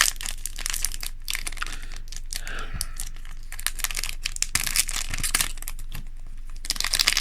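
Foil wrapper of a trading-card booster pack crinkling and tearing as it is opened and handled, in irregular rustles that are loudest about two thirds of the way through and again at the end.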